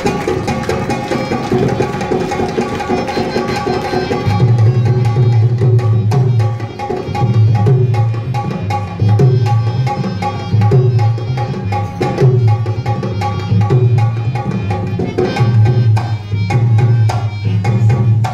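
Live Rajasthani folk dance music: a hand drum plays a fast beat over a steady held tone. Deep drum strokes come in about four seconds in and return in repeated phrases.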